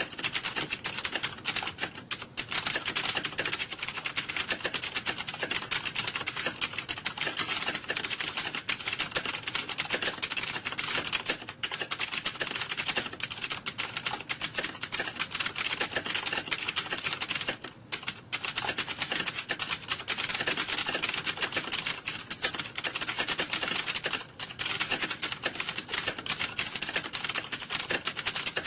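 Computer keyboards being typed on fast, as in an exam hall typing test: a dense, continuous clatter of key clicks with a few brief lulls.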